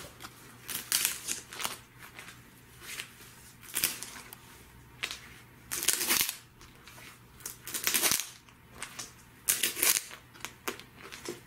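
Plastic comic book bags with backing boards crinkling and slapping against each other as a stack of bagged comics is flipped through, in irregular short bursts.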